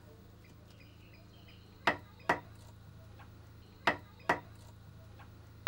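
Wooden mallet striking a chisel into a palm-wood log, hollowing out the body of a traditional Sri Lankan drum: sharp wooden knocks in two pairs, about two seconds apart.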